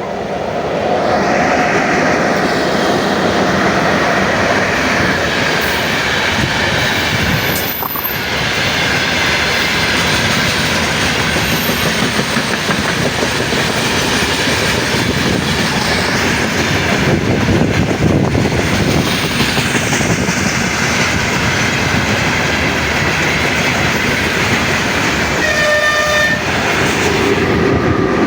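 A train passing close by: a loud, steady rush and rattle of wheels on the rails. A short horn blast sounds about two seconds before the end.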